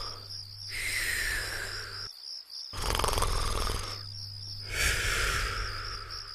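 Cartoon snoring from the animated Gulli 'G' logo: twice a rattling low snore on the in-breath, then a whistle falling in pitch on the out-breath. A steady high pulsing tone runs underneath.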